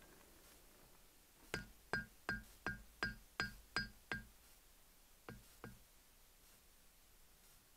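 Blacksmith's hand hammer forging a small piece of hot meteorite iron on an anvil: eight quick blows about three a second, each with a short bright ring, then a pause and two more blows.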